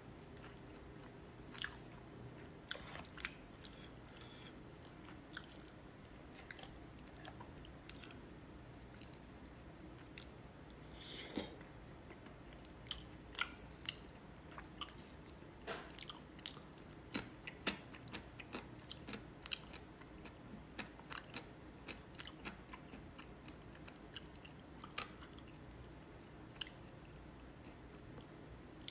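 A person chewing and biting food close to the microphone, with scattered sharp clicks and crunches over a faint steady low hum.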